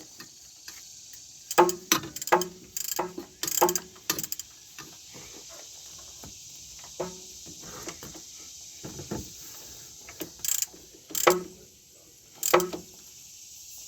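Hand tools and metal parts clinking and knocking against each other, in irregular sharp strikes with a short metallic ring, several close together in two bunches.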